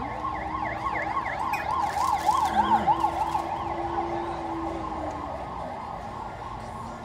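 Emergency vehicle siren going past on the street: a fast up-and-down wail, about five rises a second. It is loudest two to three seconds in and fades away after about five seconds.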